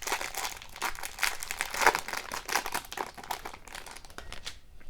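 A wrapper of a 2018-19 Upper Deck Ice hockey card pack crinkling as it is handled and torn open, in a dense run of irregular crackles that thins out near the end.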